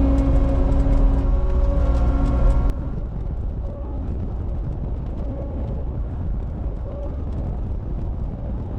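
Cat 279 skid steer's diesel engine running steadily with a whine over a low hum; a little under three seconds in, the sound suddenly drops to a quieter, duller rumble.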